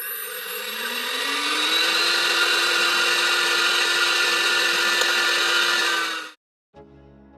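Window-cleaning robot's suction fan spinning up, its whine rising in pitch and then running steady. It shuts off suddenly about six seconds in.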